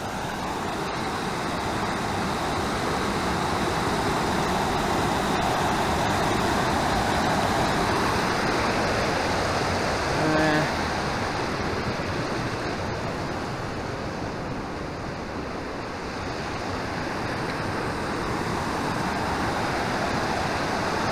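Fast-flowing mountain creek rushing steadily and loudly close by. About halfway through there is a brief, short vocal sound from a person.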